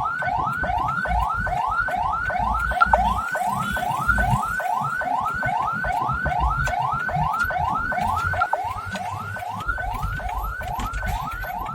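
Ambulance siren sounding a fast yelp: short rising whoops repeating about three times a second, over the low rumble of the moving ambulance.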